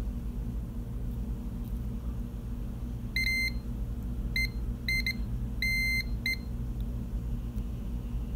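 Multimeter continuity beeper sounding in about six short, irregular beeps of one high tone starting about three seconds in, one beep longer than the rest: the probe tips are making only intermittent contact on the soldered enameled-wire joint, which the owner suspects is due to something on his tips making them poorly conductive.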